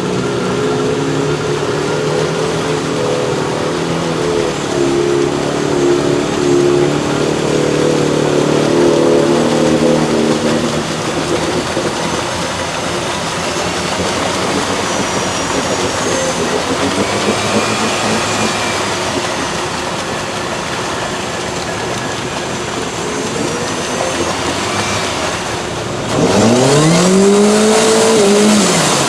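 Mud-bogging vehicle's engine running hard with its pitch shifting over the first ten seconds or so. A little before the end it revs sharply, rising and falling in pitch, louder than the rest.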